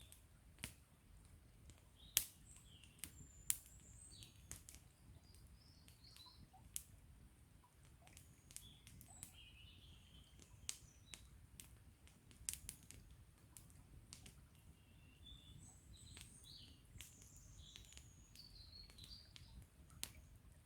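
Wood campfire crackling with scattered sharp pops, the loudest about two and three and a half seconds in, while small birds chirp and twitter throughout.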